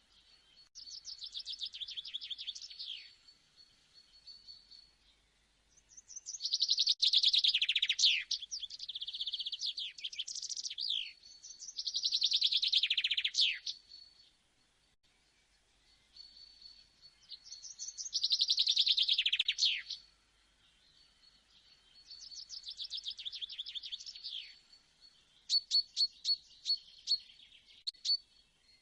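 Songbird singing: quick, high trilled phrases of one to three seconds, repeated with short pauses. Near the end comes a run of separate sharp chirps.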